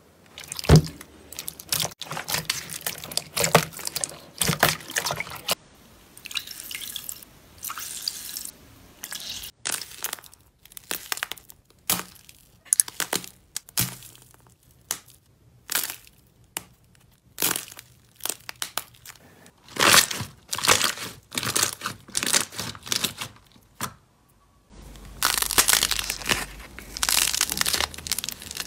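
Slime being squeezed, stretched and torn by hand: a fast, irregular run of sticky clicks, pops and crackles, with a brief pause about three-quarters of the way through.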